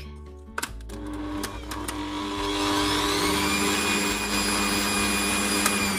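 Bosch stand mixer switched on with a click about half a second in. Its motor whine rises in pitch for about two seconds as it comes up to speed, then runs steady while the beaters work thick butter-and-sugar cookie dough. Near the end there is another click and the whine starts to fall as the mixer is switched off and winds down.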